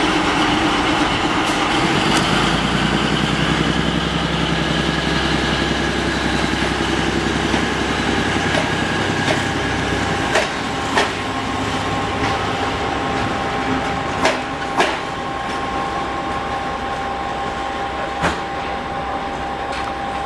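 MÁV M43 diesel-hydraulic shunting locomotive, a heavily worn example, pulling away with a passenger coach: its engine runs strongly at first, then fades as the train moves off. In the second half several sharp wheel clicks over rail joints come through, some in quick pairs.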